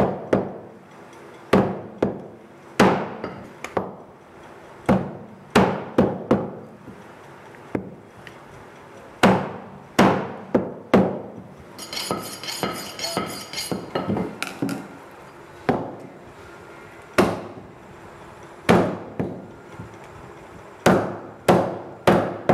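Butcher's meat cleaver chopping goat meat and bone on a wooden chopping block: heavy single strikes, irregularly spaced a second or so apart. About halfway through the chopping stops while the cleaver is stroked along a honing steel, a quick scraping of steel on steel for about two seconds.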